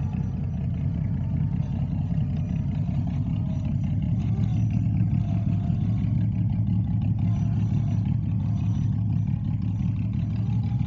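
RC rock crawler driving, a steady low rumble with a faint whine that wavers in pitch as the throttle changes.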